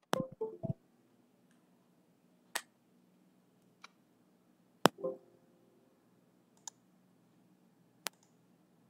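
Computer mouse clicks: about five sharp, single clicks one to two seconds apart, with near quiet between them. Short, low, muffled sounds come right at the start and just after the third click.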